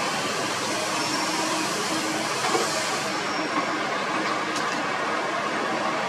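Kobelco SK200 hydraulic excavator running steadily as it digs, its diesel engine and hydraulics working under load. A higher hiss fades about halfway through, and a couple of short knocks come near the middle.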